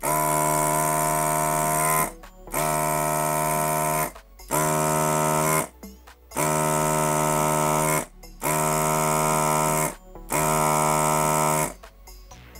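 Electric desoldering gun's vacuum pump buzzing at a steady pitch in six bursts of one to two seconds each, sucking molten solder off a slide switch's terminals on a circuit board.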